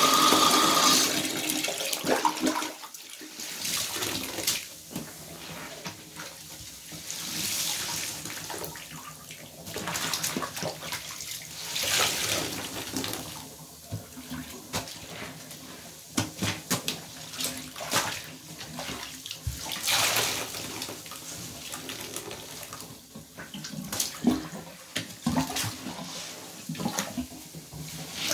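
Bathtub faucet running, shut off about a second in. A soaked synthetic sponge is then squeezed and rinsed over the tub, with water squelching out and splashing in irregular bursts.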